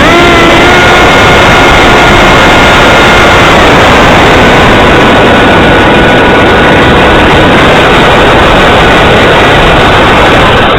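In-flight audio from a radio-controlled model plane: heavy wind rush over an onboard camera microphone, with the whine of the plane's motor and propeller running through it. The whine shifts in pitch right at the start, drops about three and a half seconds in, and runs faint under the wind after that.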